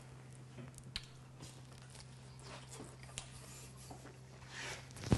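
Quiet room tone: a steady low hum with a few faint, short clicks and taps.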